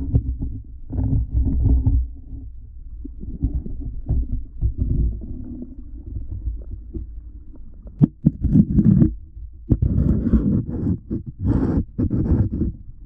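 Flowing stream water heard underwater through a GoPro's waterproof housing: a muffled low rumble with bursts of bubbling and sharp knocks, busier in the second half.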